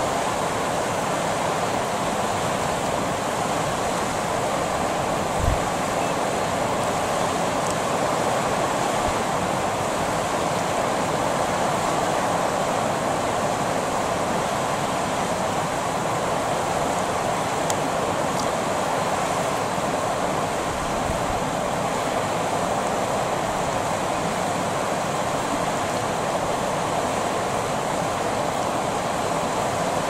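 River water running steadily over shallows, an even rushing noise. One brief low thump about five seconds in.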